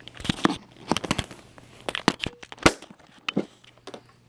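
Handling noise from art supplies and their plastic containers being moved about: irregular knocks and clicks, the loudest a little past halfway.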